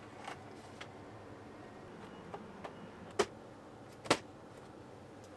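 Handling noise from unboxing a large plastic Transformers Unicron figure: a few light clicks and taps, then two sharper knocks about three and four seconds in.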